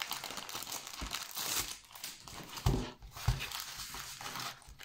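Clear plastic packaging crinkling and rustling as a rolled diamond painting canvas is slid out of its sleeve and unfolded by hand, with two low thumps about halfway through.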